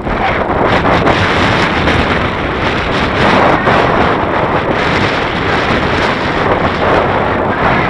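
Strong wind buffeting the microphone: a loud, steady rushing roar.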